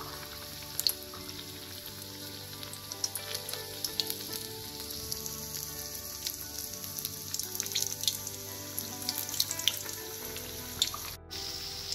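Batter-coated plantain slices deep-frying in hot oil in an iron kadai: a steady sizzle with scattered pops and crackles.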